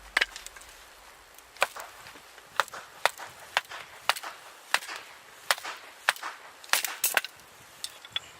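Wood being chopped into kindling for a campfire: a run of sharp knocks, about two a second, some in quick pairs.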